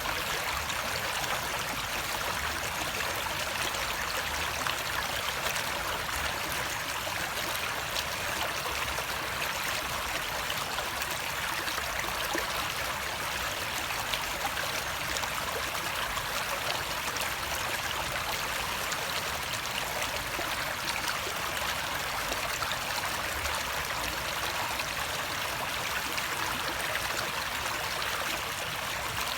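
Flowing stream water trickling and gurgling steadily, with no change in level.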